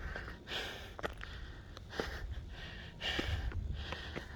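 Heavy breathing of a tired hiker climbing a steep trail: soft, noisy breaths in and out about once a second, with a few faint ticks.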